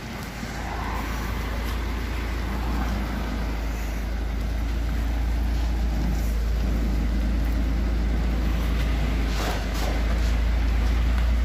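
Large truck's diesel engine running with a steady low rumble as the truck creeps slowly up to a fuel pump. A brief hiss comes about nine and a half seconds in.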